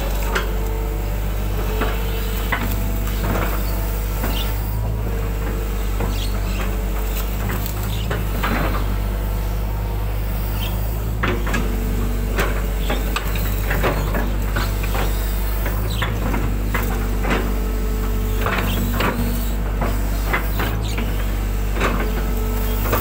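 Hydraulic excavator running steadily, heard from the cab, with a hydraulic whine that comes and goes as the boom and bucket move. Frequent short knocks and clanks come from the bucket working and levelling wet soil.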